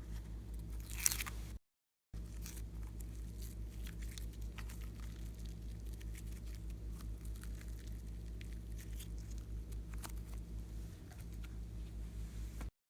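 Slime being handled, stretched and squished, giving sticky crackles, clicks and a short tearing sound about a second in, over a steady low hum. The sound cuts out briefly twice.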